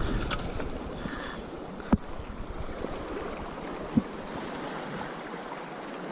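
Small sea waves lapping and washing among shoreline rocks, a steady watery wash with two brief knocks, about two and four seconds in.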